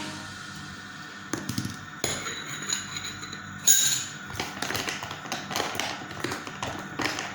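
Irregular light taps and clinks, with one louder, brighter clink about three and a half seconds in.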